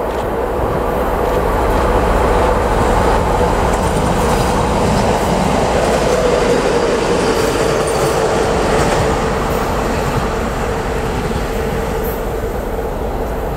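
TEP70 diesel locomotive running light past: its diesel engine running with a steady whine, and wheels rolling on the rails. It grows loudest a couple of seconds in and eases off near the end as it moves away.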